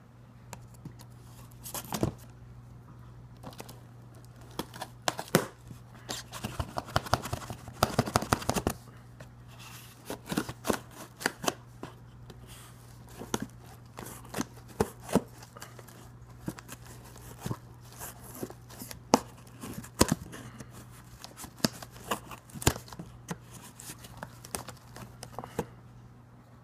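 A blade cutting through the packing tape and cardboard seam of a shipping box, with scraping, crackling and cardboard clicks, and a fast run of crackles about a third of the way in. A steady low hum runs underneath.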